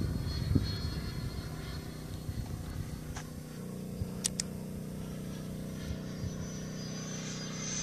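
Distant whine of a large electric ducted-fan RC jet (11-blade 127 mm fan on an electric motor), a steady hum of several tones heard from afar that begins to swell near the end as the jet closes in for a high-speed pass. A couple of sharp clicks a little after the middle.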